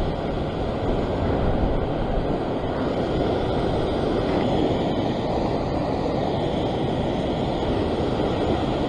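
Ocean surf washing and foaming over a rock ledge, a steady rushing noise, with wind on the microphone.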